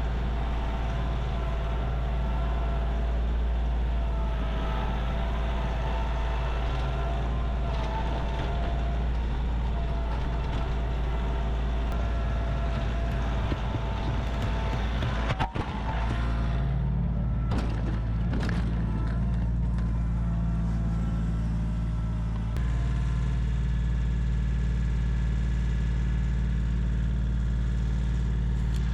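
An engine running steadily, with a low hum throughout. It breaks briefly about halfway, and its tone changes twice after that.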